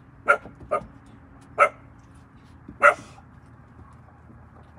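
Young puppies barking: four short, high-pitched barks spread over about three seconds, then quiet.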